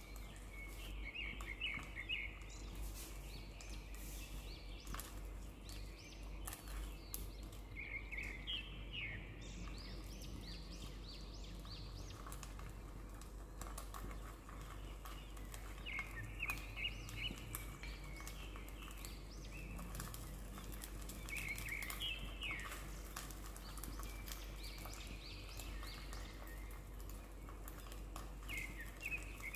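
Chicken sausages sizzling in a frying pan with fine crackles and pops. Over it a bird chirps in short quick runs, about five times.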